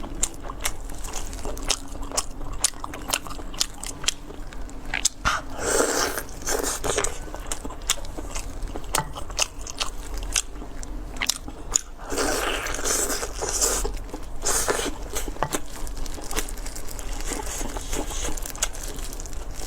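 Close-miked eating: crunchy bites and chewing, a steady run of sharp crackly clicks, with louder crunching stretches about six seconds in and again from about twelve to fifteen seconds.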